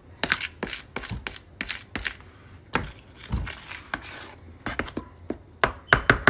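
A utensil stirring and scraping thick red velvet cake batter around a plastic mixing bowl, in irregular short strokes. Near the end comes a quick run of sharp knocks, the loudest sounds.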